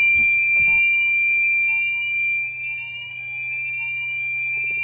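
Fire alarm sounders on a Gent Xenex system sounding in full fire mode: a loud steady high tone over rising sweep tones that repeat several times a second, with a low hum beneath.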